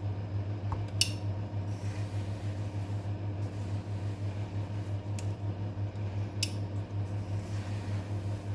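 A steady low hum with a slight regular pulsing, as of a small running motor, with three sharp clicks: about one second in, and twice more around five and six and a half seconds in.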